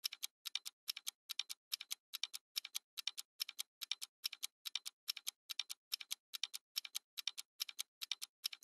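Clock-ticking sound effect: even, sharp double clicks, about two a second, with silence between, played under a countdown-timer title.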